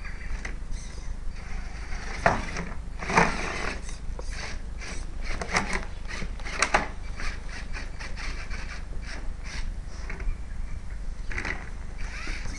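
Redcat Rockslide RS10 XT electric rock crawler's drivetrain grinding and clattering as it climbs and rolls over on a pile of rocks. A few sharp knocks and scrapes come between about two and seven seconds in.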